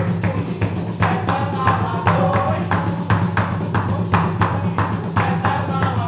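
Coco music: a wooden box drum slapped by hand in a fast, even beat, with a ganzá shaker and bare feet stamping on a wooden stage.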